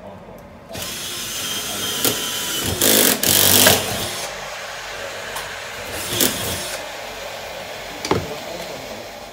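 Cordless drill running as holes are drilled into the floor, starting about a second in, with its loudest spell around three seconds in and shorter louder moments near six and eight seconds.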